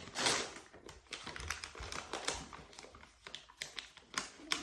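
Gift packaging and its contents being handled: a burst of rustling near the start, then a string of small irregular clicks and taps.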